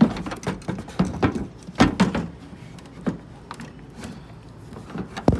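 Irregular plastic knocks and clicks of a pickup's turn signal lamp housing being handled and pushed back into place, with a sharp knock near the end.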